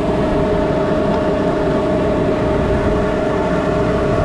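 Tractor running with the big vacuum fan of a precision vacuum seeder: a steady mechanical drone carrying a constant whine.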